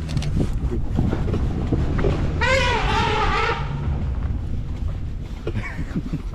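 Asian elephant trumpeting once, a loud call of about a second, over the low, steady running of a vehicle engine.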